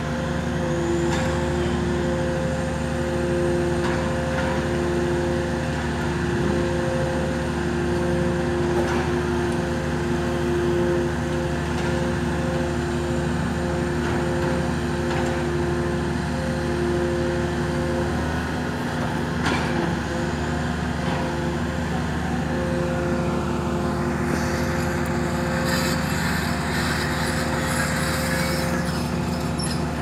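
Hydraulic static pile driver's power unit running steadily, a hum with several held tones. A hiss joins in over it late on.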